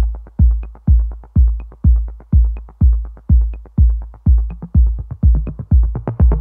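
Electronic intro music: a steady, heavy kick-drum beat about twice a second with light ticks between the beats.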